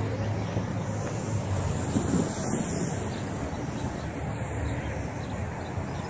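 Strong wind buffeting the microphone: a steady low rush of wind noise.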